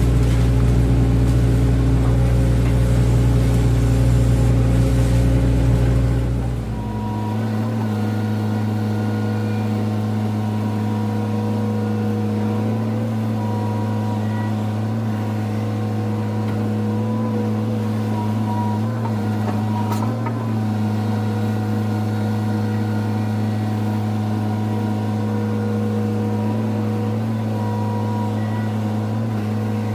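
Hydraulic excavator's diesel engine running. It is heavy and loud for about the first six seconds, then drops abruptly to a steady, lower hum for the rest.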